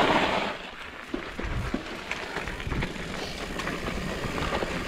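Fat-tyre mountain bike rolling along a wet trail: a hiss of tyre and wind noise that is loudest in the first half-second, then quieter, with scattered light clicks and rattles from the bike.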